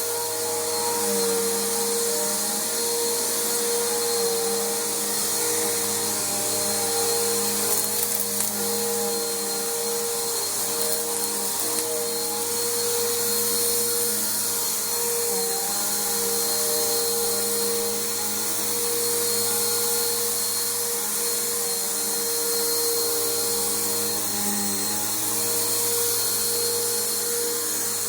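Bissell Powerforce Bagged upright vacuum cleaner running steadily on carpet, its motor hum and hiss wavering slightly in pitch.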